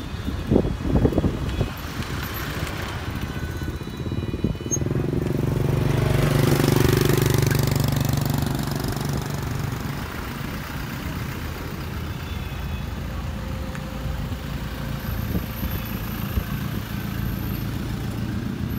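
A motor vehicle passing close by, swelling to its loudest about seven seconds in and then fading, over a steady low rumble.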